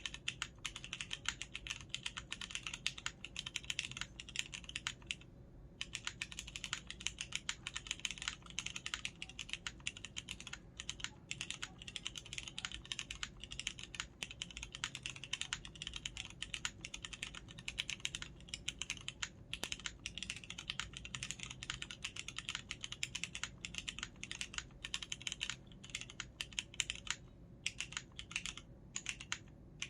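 Continuous fast typing on a KMG B60 mechanical keyboard with Cherry MX Brown tactile switches and CRP R4 keycaps: a rapid, even clatter of keystrokes, with a brief pause about five seconds in and a few short gaps near the end.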